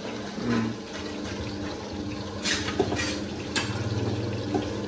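Oil sizzling in woks of bánh xèo (Vietnamese crispy pancakes) deep-frying, as a steady hiss over a low hum. A few sharp clicks sound about halfway through.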